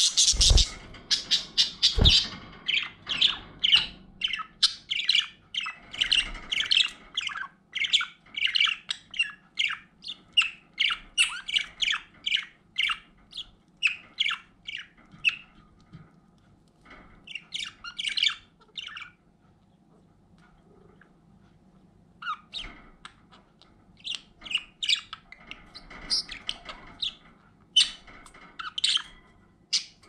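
Pet budgerigars chattering in quick, squawky chirps: dense for the first half, then a pause of a few seconds, then a few more bursts. Two low thumps come in the first two seconds.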